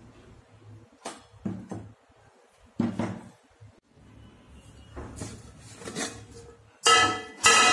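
Aluminium idli steamer being handled: scattered light knocks and scrapes, then two loud ringing metal clanks near the end as its lid is lifted off the pot.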